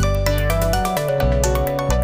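Background music: electronic track with held synthesizer bass notes, a melody line and a steady beat.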